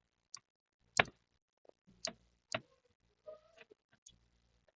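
A few light, scattered clicks and taps of small tools and parts being handled while a laptop is taken apart, the sharpest about a second in.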